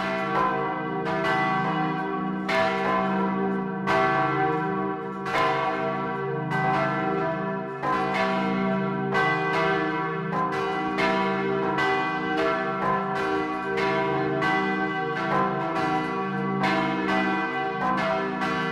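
Peal of three swinging bronze church bells tuned c′–e′–g′, heard up close inside the belfry; the largest is a 4300 kg bell cast in 1525. Their clappers strike in an uneven, overlapping rhythm of one to two strokes a second, over a constant ringing hum.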